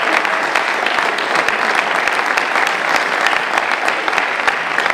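Audience applauding: a loud, steady wash of many hands clapping.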